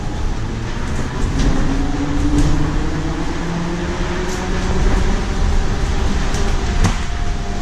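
Cabin sound of a Nova Bus LFSe battery-electric bus under way: the TM4 LSM280 electric traction motor's whine rising slowly in pitch as the bus picks up speed, over steady road rumble. A few sharp clicks and rattles from the cabin, the sharpest near the end.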